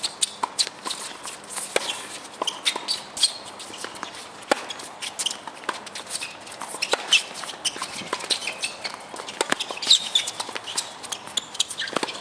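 Tennis doubles rally on a hard court: rackets striking the ball, the ball bouncing and players' quick footsteps, heard as a busy scatter of sharp clicks and taps.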